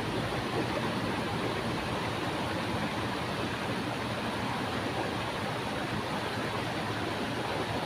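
Fast, shallow stream water rushing through a concrete channel: a steady, even rush with no breaks.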